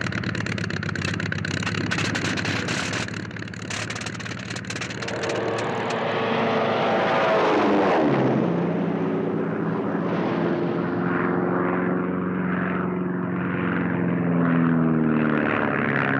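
Vintage propeller aircraft engines. The sound opens with a dense crackling rattle over the engine noise, then an engine drone whose pitch dips and climbs back about eight seconds in as the plane passes. It then settles into a steady, slightly wavering drone.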